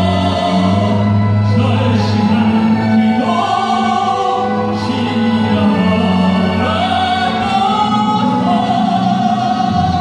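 Male pop-opera (popera) singer singing long held notes into a microphone over instrumental accompaniment.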